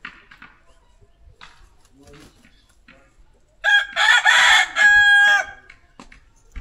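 A rooster crows once, loudly, about four seconds in: a call of nearly two seconds ending on a long held note. Faint small clicks and knocks come before it.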